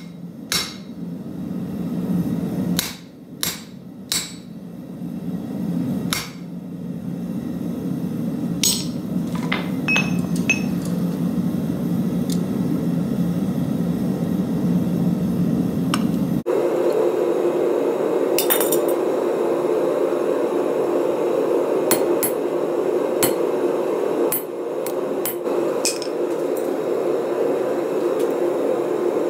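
Hammer blows ringing on hot steel over a railroad-track anvil: a run of separate clanks in the first ten seconds, then scattered strikes and clinks. Under them runs a steady roar that shifts abruptly higher a little past halfway.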